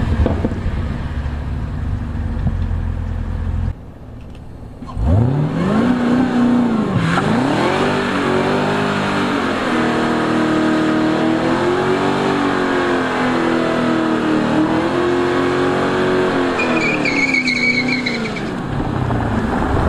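An engine revving: its pitch climbs from low, then rises and falls while it is held at high revs, with a brief high squeal near the end. A low rumble comes first, before a short drop in level.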